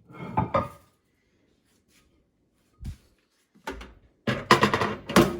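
Knocks and clatter of microwave oven parts being handled and set down: a cluster of knocks at the start, a single thump about three seconds in, then a louder run of clattering near the end.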